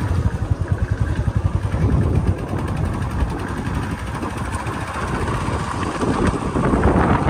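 Motorcycle engine running, with fast, even pulsing in the first couple of seconds that settles into a steadier rumble.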